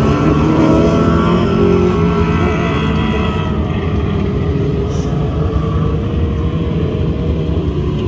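Engines of small winged dirt-track race cars running on the track during hot laps, their pitch rising and falling. The sound drops a little after about three and a half seconds.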